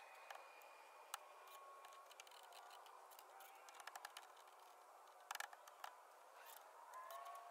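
Near silence: faint hiss with scattered small clicks, the most noticeable a short cluster about five and a half seconds in.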